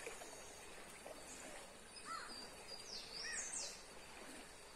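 Birds calling faintly: a few short chirps and quick high whistles about two to three and a half seconds in, over a faint steady background hiss.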